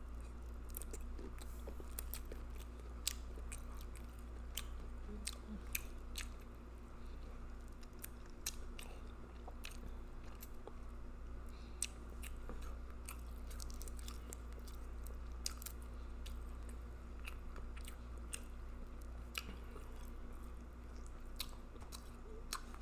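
A person chewing food and smacking close to the microphone, with many irregular sharp mouth clicks over a steady low hum.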